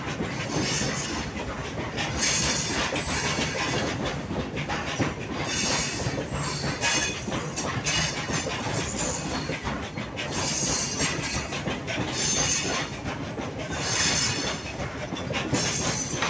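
Open-top steel freight wagons of a goods train rolling slowly past at close range. The wheels run on the rails with a continuous clatter, and a high-pitched screech rises and falls every second or two.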